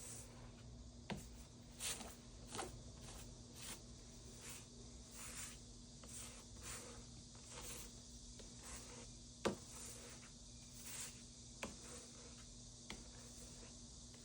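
Paintbrush stroking across a painting's surface: soft swishes repeating roughly twice a second, with a few light taps, the sharpest about nine and a half seconds in.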